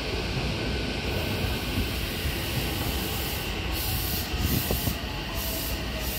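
Odakyu 4000 series electric commuter train pulling into a station platform at low speed, its wheels and running gear rumbling steadily as it slows to a stop. A faint whine falls in pitch during the second half as it brakes.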